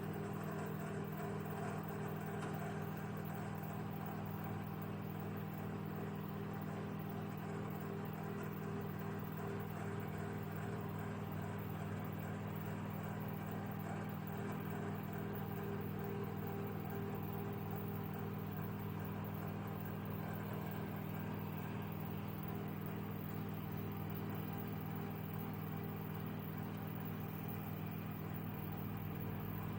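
Microwave oven running: a steady, unchanging low hum.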